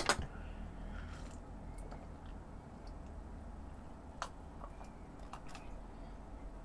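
A sharp click at the very start, then quiet with a few faint scattered clicks and swallowing sounds as a man sips from a glass.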